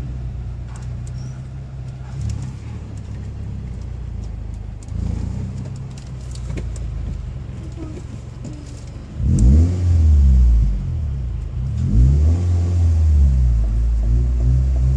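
Car cabin rumble from the engine and tyres at low speed. It grows much louder about nine seconds in as the engine pitch rises and falls.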